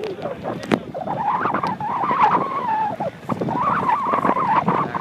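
Business jet's engines running as it taxis, a steady whine that wavers slightly in pitch, dropping out briefly about three seconds in and then returning, with wind buffeting the microphone.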